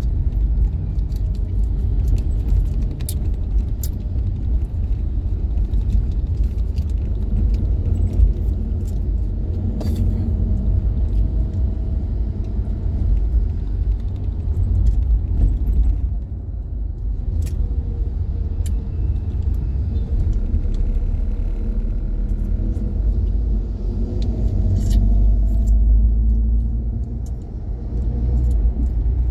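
Steady low rumble of a car's engine and tyres heard from inside the cabin while driving, with a faint engine note that rises and falls and scattered small clicks and rattles.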